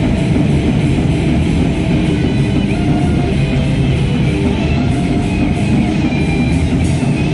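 Heavy metal band playing live, with distorted electric guitars and a drum kit, loud and unbroken.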